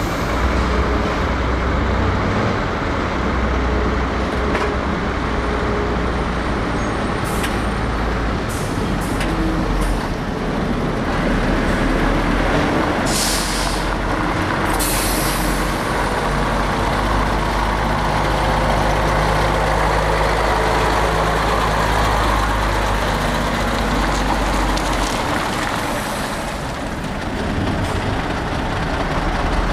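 Volvo F12 truck's six-cylinder diesel engine running as it manoeuvres with a drawbar trailer. Air brakes hiss twice, briefly, about halfway through.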